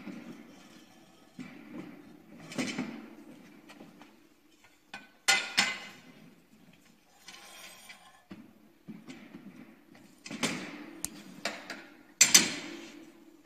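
Metal knocks and clanks of an air bike's steel handlebar arm tube being fitted onto the frame, a series of separate knocks, the loudest near the end.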